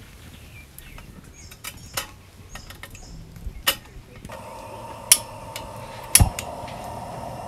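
Light metal clinks as a gas lantern's handle is fitted, over the crackle of a campfire. About four seconds in, a steady hiss of gas from the lantern starts. Two sharp clicks follow as the lantern is lit.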